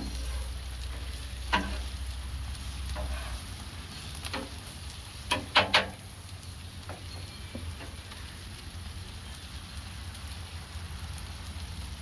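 Food frying on a hot cooking surface, a steady sizzle, with a few sharp clicks or knocks, the loudest pair about five and a half seconds in.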